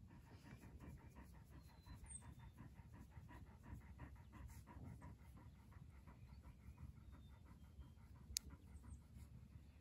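Dog panting softly and quickly in an even rhythm, with a single sharp click near the end.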